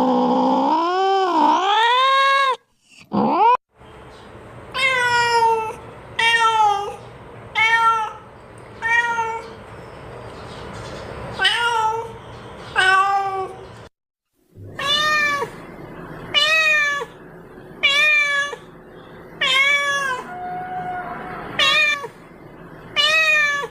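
Domestic cat meowing over and over at feeding time, begging for food. It opens with one long, wavering meow, then gives short meows about every second and a half.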